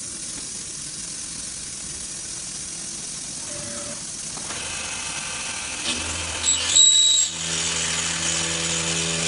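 Profile machining machine running: a steady mechanical whir at first, a short clatter with a brief high whistle about six to seven seconds in, then a steady motor hum and whine.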